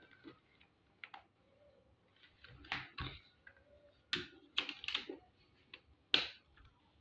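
A sheet of paper being folded and creased by hand on a tabletop: a few short, crisp rustles and taps, the loudest about four and six seconds in.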